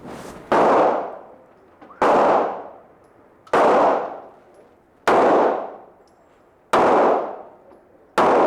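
Shotgun fired six times at an even pace, about one shot every second and a half, each blast loud and echoing as it dies away.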